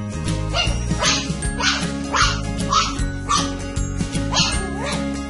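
A dog barking repeatedly, a short bark about every half second, over background music.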